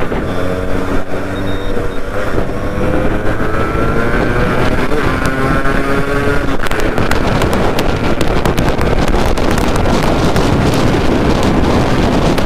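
Yamaha RX two-stroke motorcycle engine under way, its pitch rising as it pulls, with a drop in pitch about five seconds in before it climbs again. From about six and a half seconds on, wind rushing over the microphone drowns most of the engine.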